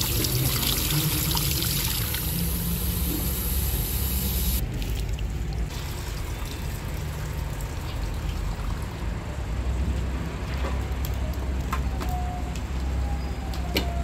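Tap water running and splashing into a metal bowl of diced potatoes and over into a stone basin as the potatoes are rinsed, splashing hard for the first few seconds and then quieter as the water is poured off. A few light knocks sound near the end, over a steady low hum.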